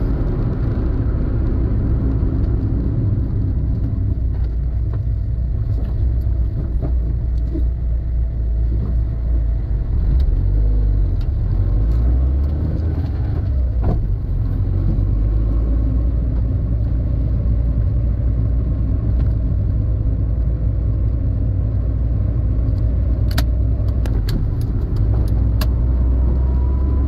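Citroën Saxo VTS on the move, heard from inside the cabin: a steady low rumble of engine and tyre noise. A few light clicks come near the end, and the engine note rises slightly as the car picks up speed.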